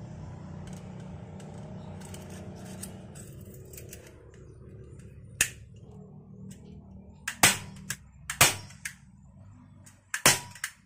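Hand staple gun firing staples through speaker grille cloth into the frame: about four sharp snaps from about five seconds in, most followed closely by a second click, the last near the end. A low rumble fades away over the first few seconds.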